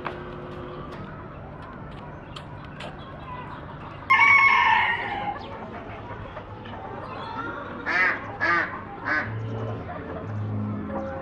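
A rooster crows once, loud and drawn out, about four seconds in. About eight seconds in come three short calls from the hens, clucking.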